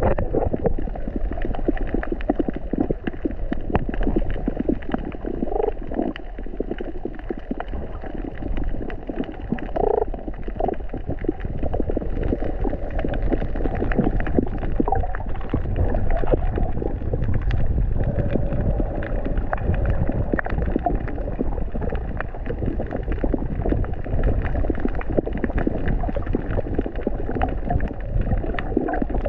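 Muffled underwater ambience: a dense low rumble with constant faint crackling clicks and a few brief gurgles.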